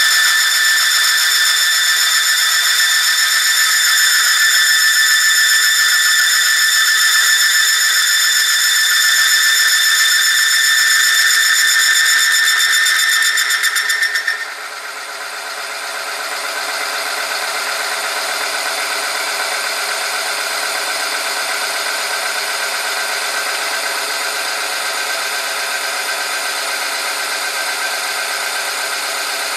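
Oil-film friction test machine running, its motor-driven roller rubbing on a metal test sample in hot 10W-40 oil with a loud, steady high-pitched squeal. About halfway through, as another weight is added to the load arm, the squeal cuts off and gives way to a rougher, steady grinding.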